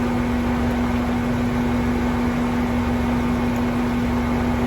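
Tractor engine running steadily: an even mechanical drone with one strong, steady hum.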